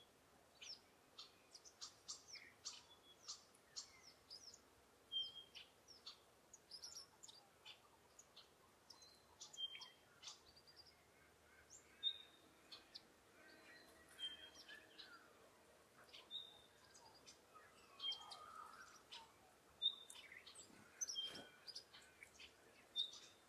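Several wild woodland birds calling: many short, sharp chirps, with one short piping note repeated every couple of seconds and a few brief lower warbling phrases, over a quiet background.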